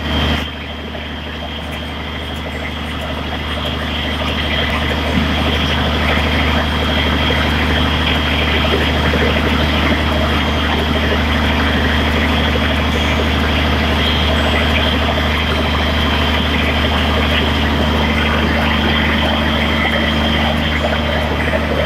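Caterpillar generator set's diesel engine running at a steady speed, a low drone with a thin high whine over it, a little louder after the first few seconds. The alternator has lost its excitation, so the set runs without putting out voltage.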